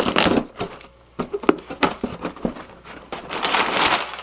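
A blade rasping through the tape on a cardboard box, then a few sharp knocks, then the scraping rustle of the box's cardboard flaps being pulled open.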